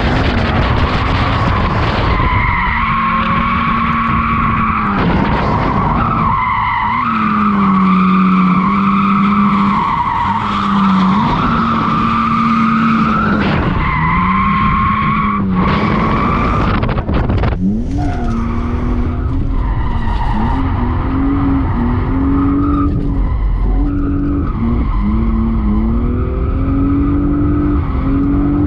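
BMW E36 drifting: tires squealing with the engine held at high revs, the pitch dipping and climbing again every few seconds.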